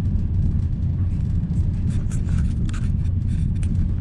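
Steady low rumble of a sleeper train running, heard from inside the compartment, with a few faint rattles about halfway through.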